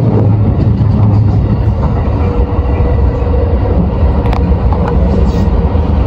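Electric train running along the track, heard from inside the driver's cab: a steady low rumble of wheels and running gear, with a couple of faint clicks in the last two seconds.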